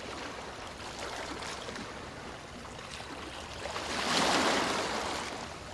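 Ocean surf: a steady wash of waves, with one wave swelling louder about four seconds in and then receding.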